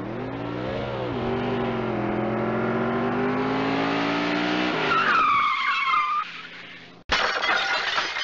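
Car crash sound effect: an engine revving up and accelerating, tyres squealing about five seconds in, then a sudden loud crash of impact about seven seconds in.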